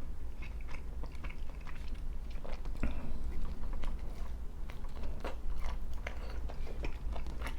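A person chewing a mouthful of barbecue chicken pizza close to the microphone: irregular wet smacks and soft crunches of the crust.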